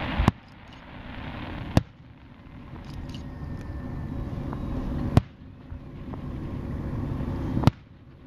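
Aerial fireworks shells bursting: four sharp, loud booms, irregularly spaced about one and a half to three and a half seconds apart, with a low rumbling background between them.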